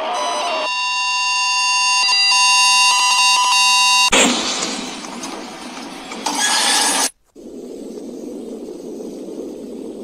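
Harsh electronic sound effects: a loud, steady, high electronic tone like a buzzer or alarm, cut off about four seconds in by a sudden burst of static that fades. A second short burst of static follows, then a brief dropout and a steady hiss.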